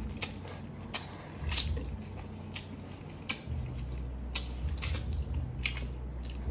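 Close-miked chewing of chicken adobo with the mouth closed: irregular wet clicks and smacks, about one or two a second, over a low steady hum.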